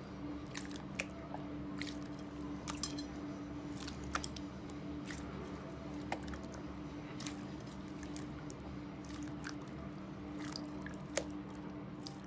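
Slime being squeezed and worked by hand, giving scattered small clicks, pops and crackles over a steady low electrical hum.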